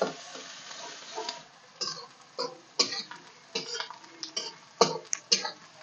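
Chopped onions frying in oil in a steel kadai, a hiss of sizzling for the first second or so, then a steel spatula scraping and knocking against the pan in short strokes about twice a second as the onions are stirred towards browning.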